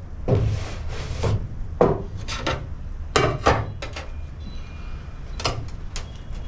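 A run of short scrapes and clanks of metal tools and clamps being handled against the truck's steel hood, about half a dozen in a few seconds.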